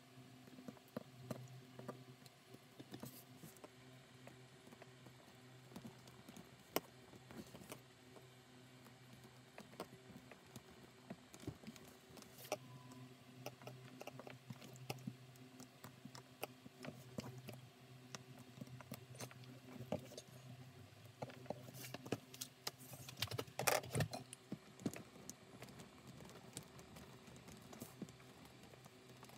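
Quiet handcraft handling: a bone folder and fingers creasing and pressing the folded edges of a blue plastic IKEA bag strap on a cutting mat, giving scattered small clicks and rustles over a faint steady hum. A short run of louder clicks and knocks comes a few seconds before the end, as the bone folder is put down and a small metal roller is pressed along the strap.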